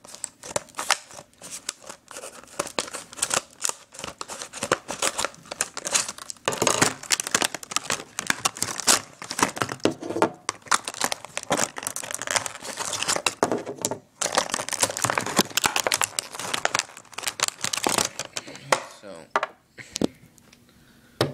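Packaging of a ratchet set being cut and torn open, with irregular crinkling, crackling and tearing that dies away near the end.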